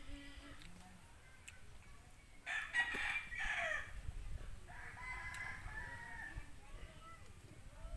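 A rooster crowing loudly about two and a half seconds in, its call dropping in pitch as it ends. A fainter, steadier call follows about five seconds in.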